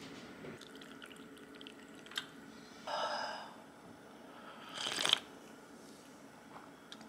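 Sips of hot tea from a glass mug, one about three seconds in and a louder one about five seconds in, with a light click of the glass just before the first.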